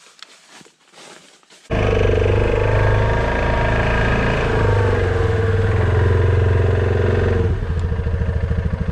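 A small gasoline engine comes in suddenly about two seconds in and runs loud at high speed, then drops to a lower, lumpy idle near the end.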